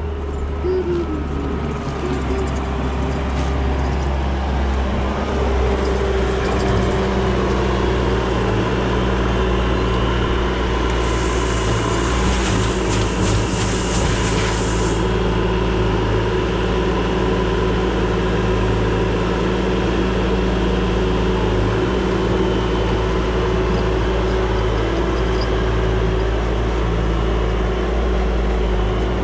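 Skid steer's diesel engine running steadily, a low drone with a steady whine above it. A hiss rises for about four seconds near the middle.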